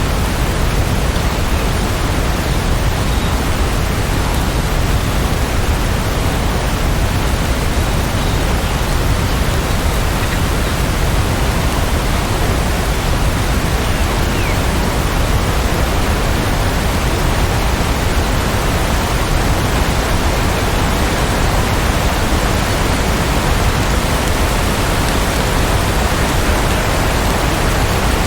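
Steady rainfall, an unbroken even hiss with a strong low rumble beneath it and no distinct thunderclaps.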